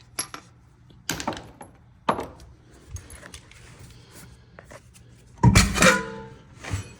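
Knocks and clanks of metal parts being handled, with one loud, ringing metallic clang about five and a half seconds in.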